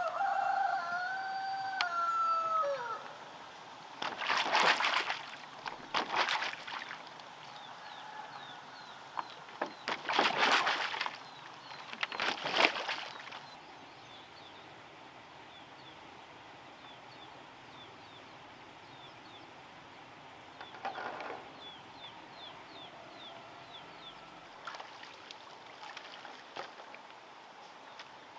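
A rooster crows once, the call dropping away at its end, followed by four loud splashes of water and a weaker one later on. Faint high chirps sound in the quieter stretch between.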